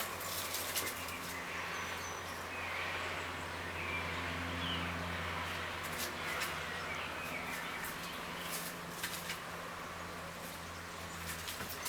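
Kittens playing: scattered light taps and scuffles over a steady low hum.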